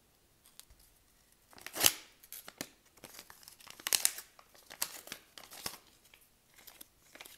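Paper seed packet being handled and torn: a string of short, sharp crinkles and rips, the loudest about two and four seconds in.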